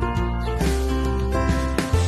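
Background music: a pop-style track with plucked guitar-like notes over a steady bass.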